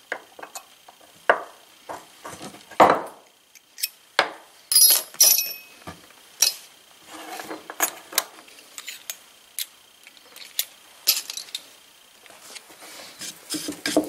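Hand tools clinking, tapping and scraping in irregular knocks while a paper carburetor gasket is trimmed to shape.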